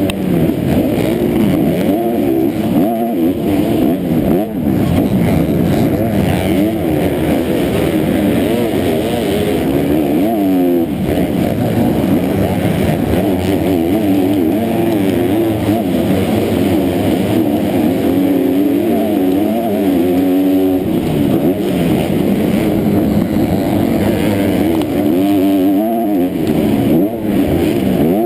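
Motocross bike engine running hard through a race lap, its pitch rising and falling again and again with the throttle and gear changes.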